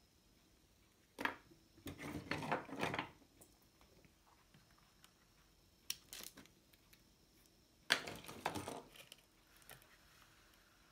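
Small metallic clicks and rattles of pliers and wires being handled at a water pump motor's terminal box, coming in three short clusters: about a second in, around six seconds, and around eight seconds.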